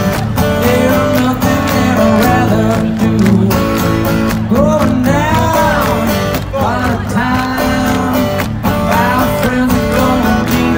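Solo male voice singing to a strummed acoustic guitar, heard through a festival PA from within the crowd.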